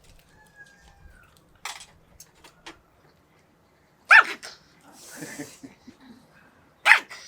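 Dog barking: two short, loud barks about three seconds apart, with a brief snort-like huff between them.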